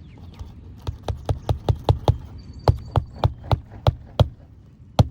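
Hammer driving roofing nails through a new asphalt shingle: a quick, even run of sharp strikes, about five a second, then one last hard blow near the end.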